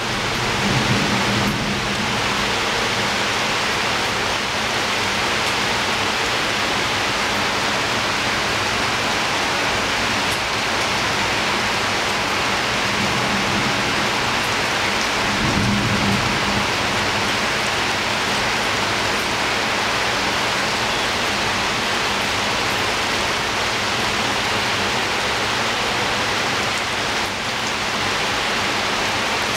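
Steady rain falling at a window, an even hiss throughout, with low rumbles of thunder about a second in and again around the middle.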